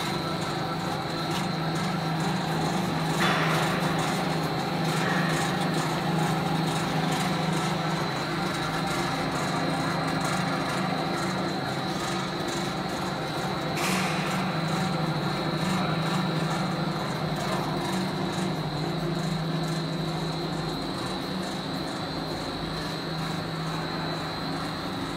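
Grain air-puffing (pop rice) machine running: a steady motor hum with a constant high whine over it. A short rushing noise comes about three seconds in and again about fourteen seconds in.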